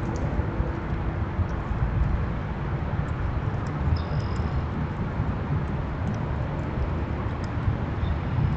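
Steady low outdoor rumble, with a few faint, short high chirps scattered through it and one brief high note about four seconds in.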